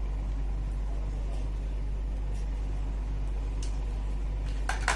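Steady low hum, with a few faint clicks and a short sharp sound just before the end.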